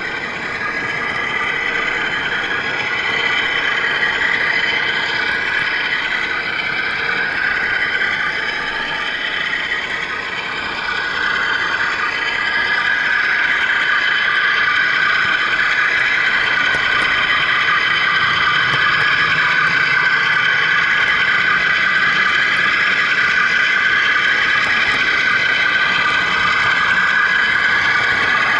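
HO-scale model train running, heard from a camera riding on it: a steady whine of motor and gearing with wheel-on-rail noise, its pitch drifting a little. It gets louder about eleven seconds in.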